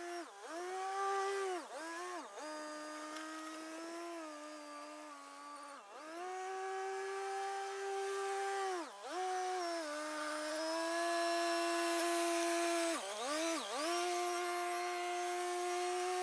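Kioti CK3510SE compact tractor's three-cylinder diesel running at working revs while grading gravel with a box blade, a steady whining tone over the engine. The pitch dips briefly and recovers several times, often in quick pairs.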